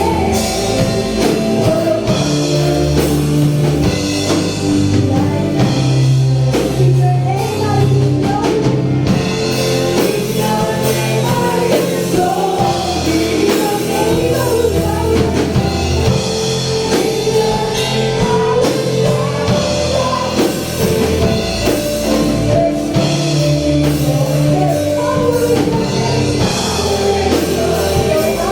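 Live worship band playing a rock-style praise song, with drum kit, bass and guitar, and singing over it.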